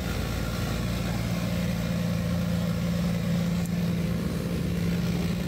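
Engine of a 600-horsepower BMW E36 drift car idling, a steady low drone.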